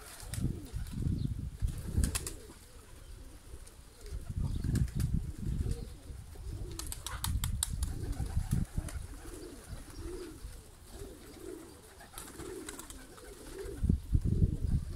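Domestic pigeons cooing, wavering low calls that come repeatedly through the second half, over an uneven low rumble with a few sharp clicks.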